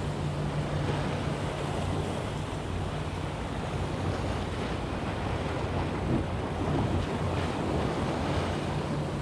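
Sea waves washing against a rocky shore, with wind buffeting the microphone. A steady low hum sits underneath early on, fades, and comes back near the end.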